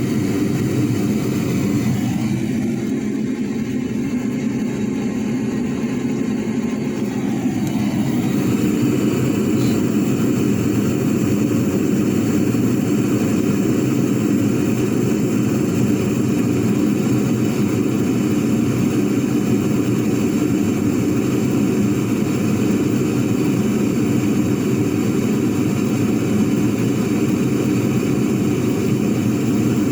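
A homemade aerated-concrete furnace firing, its burner giving a steady low rushing noise. It dips slightly from about two to eight seconds in, then holds steady.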